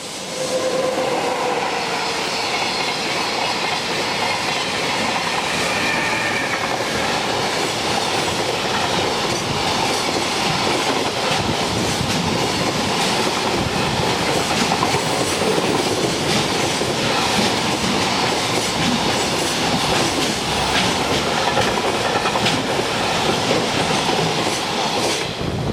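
Train passing close by at speed for about 25 seconds, wheels clacking over rail joints, with a whine at the start that falls slightly in pitch.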